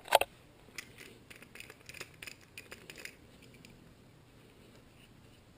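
Light metallic clicks and scrapes of a bearing-puller tool and wrenches being handled and loosened, with one sharp click at the start; the small clicks die away after about three seconds.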